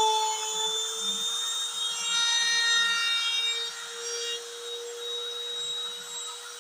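Handheld router running as the spindle of a homemade CNC machine, with a steady motor whine and the hiss of the bit carving into an MDF board.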